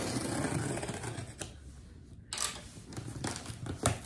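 Cardboard box being opened and handled: a scraping, rustling noise for about two seconds, then a few sharp clicks and taps.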